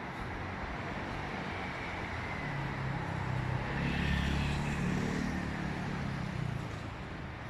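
A motor vehicle passing by: its engine hum swells to a peak about four seconds in, then fades, over steady street noise.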